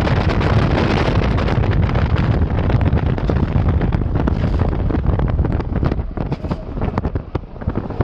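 Wind rushing and buffeting against a microphone held at the window of a moving car, with a low road rumble underneath. The rush breaks up into choppier gusts near the end.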